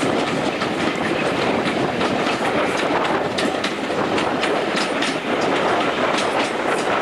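Railway carriage running along the track, heard from inside: a steady rumble of wheels on rail with frequent sharp clicks as the wheels pass over rail joints.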